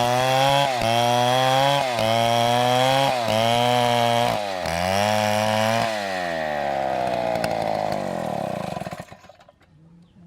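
Chainsaw engine running at high revs in repeated surges about a second apart. About six seconds in, its pitch falls steadily over some three seconds as it winds down, and it dies away about nine seconds in.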